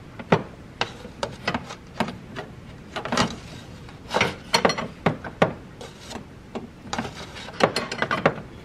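A spanner clicking and knocking against metal as the Range Rover L322's viscous cooling fan nut is worked loose: irregular sharp clicks and taps, thickest about three to five and a half seconds in and again near the end.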